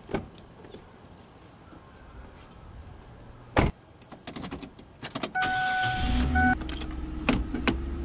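Inside a car: a door shuts with a sharp thud, a few clicks follow, then a steady electronic warning chime sounds for about a second, and a low rumble of the engine starts and keeps running.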